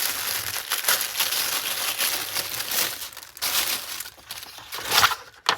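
Packaging wrap crinkling and rustling as items are unwrapped and lifted out of a box by hand. It is busy for the first three and a half seconds, then a few scattered crinkles, with one sharper crackle near the end.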